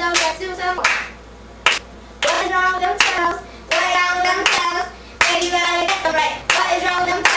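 Children singing short sung phrases together, with hand claps between them.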